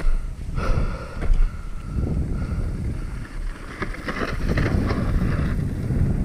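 Wind buffeting the microphone over the rumble and rattle of an Upland Vanguard hardtail mountain bike rolling over a rocky trail. A thin high tone runs for about two seconds starting around half a second in, and a brighter hissing patch comes between about four and five and a half seconds.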